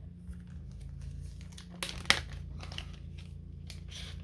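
Packaging crinkling and rustling as it is handled and opened, a run of short crackles with one sharp snap about two seconds in.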